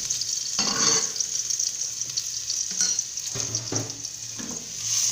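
Crushed, chopped garlic sizzling in hot cooking oil in a pan, with a steady high hiss, while a spatula scrapes and stirs it in several short strokes.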